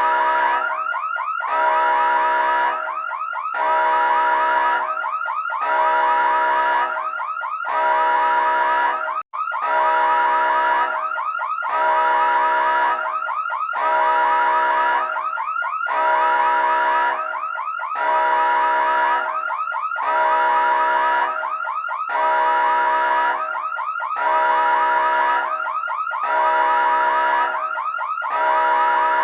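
Electronic emergency siren, cycling about every two seconds between a held steady tone and a rapid warbling sweep. The sound cuts out for an instant about nine seconds in.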